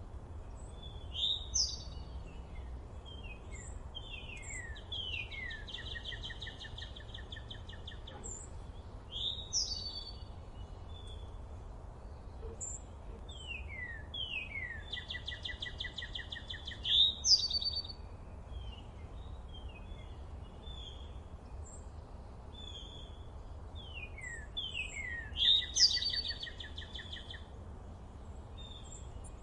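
Songbirds singing. One song phrase comes three times, each a run of quick down-slurred notes ending in a fast trill, with scattered short chirps between. A steady low rumble runs underneath.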